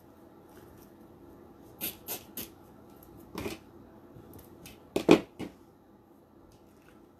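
Poly burlap mesh petals rustling and scraping as they are handled and worked onto a wire wreath board, in short scratchy rustles: three quick ones about two seconds in, one around three and a half seconds, and the loudest pair about five seconds in.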